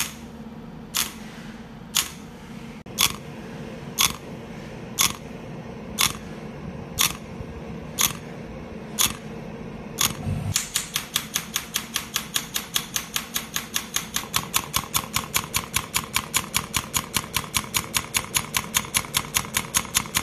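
Radial shockwave therapy handpiece firing its pneumatic pulses as sharp clicks, once a second at first, set to 1 Hz and 1.0 bar, then about ten seconds in a much faster, even stream of clicks as it works against gel-covered skin, over a steady machine hum.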